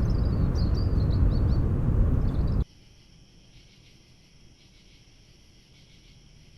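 Loud, steady low rumble with short bird chirps over it, cutting off abruptly about two and a half seconds in to a faint, quiet hum.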